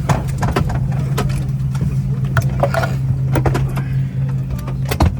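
Parked Airbus A330-323 cabin after engine shutdown: a steady low hum with scattered clicks and knocks of passengers moving about and handling their belongings.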